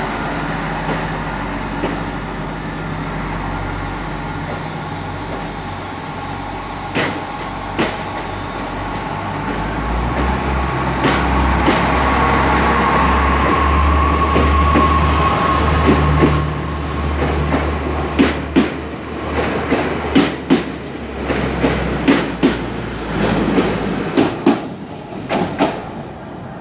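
A coupled pair of SNCF X 76500 (AGC) diesel multiple units pulling out of the platform. Their diesel engines grow louder to a deep rumble as the train gathers speed past. In the last several seconds the wheels clack over rail joints and points as it moves away.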